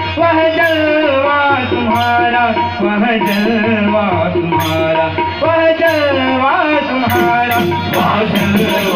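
Bhajan ensemble music: a gliding melody over harmonium and a hand drum, with short high percussion strikes about every second and a quarter that come faster near the end.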